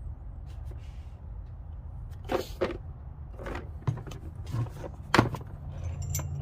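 Scattered clicks and light knocks of an extra-long Torx bit socket set and its case being handled, a few separate hits over a couple of seconds, over a steady low hum.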